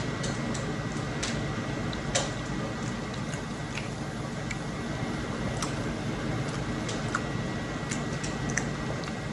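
A person chewing a bite of fish: scattered small, wet mouth clicks over a steady low background hum.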